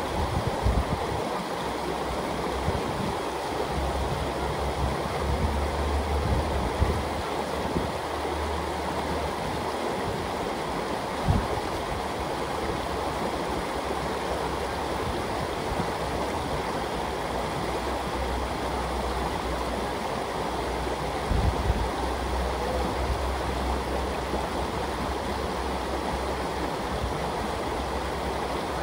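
Shallow river rushing and babbling steadily over rocks and riffles. A low rumble comes and goes, with a brief thump or two.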